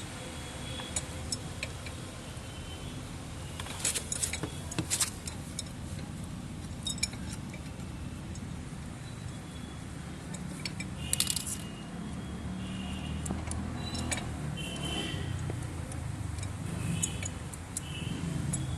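Scattered light metallic clinks and taps, bunched twice, over a steady low rumble.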